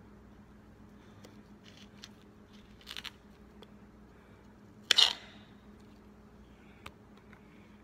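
Serrated kitchen knife cutting banana peel on a granite countertop: faint scrapes and small ticks of the blade against the stone, with a short cluster of sharper clicks about three seconds in and a louder sharp knock-and-scrape about five seconds in.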